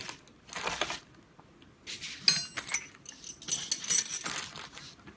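Metal parts and tools clattering as they are handled, in several bursts, with one sharp ringing metallic clink a little over two seconds in.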